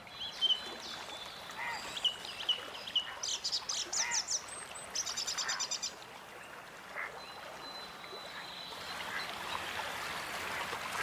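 Wild birds calling, with chirps and quick trills through the first half, over a soft, steady wash of water that grows a little louder near the end.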